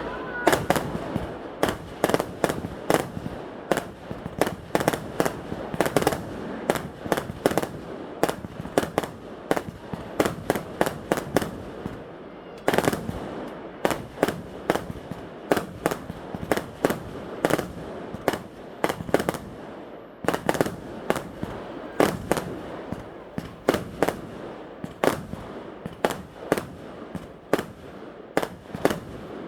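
Fireworks going off: an irregular, rapid series of sharp bangs and cracks, several a second, with no let-up.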